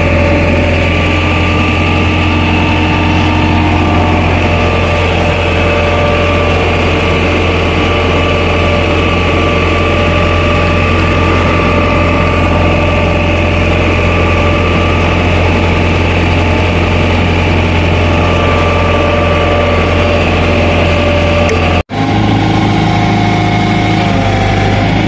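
Hitachi EX120 hydraulic excavator's diesel engine running steadily, heard up close from the machine, with a brief drop-out near the end.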